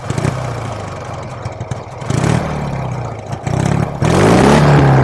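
Motorcycle engine running with some mechanical clatter, then revved about four seconds in, getting louder and rising in pitch.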